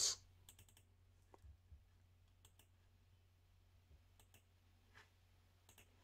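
Near silence with a few faint, scattered clicks from a computer mouse and keyboard while an on-screen block is edited.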